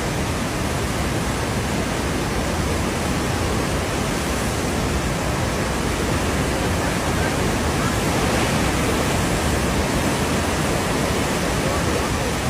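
Steady, loud rush of swollen floodwater running fast, an even noise with no breaks.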